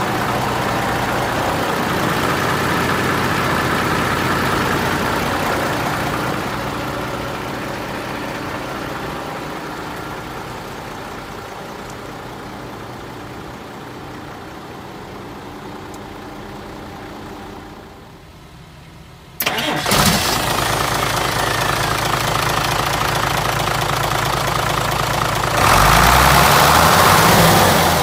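Hino J08C inline-six diesel engine of a 1998 Hino Ranger dump truck idling steadily. It fades to a lower level for a while, then comes back loud and close with a sudden click about two-thirds of the way in. Near the end it gets louder still and its note wavers up and down.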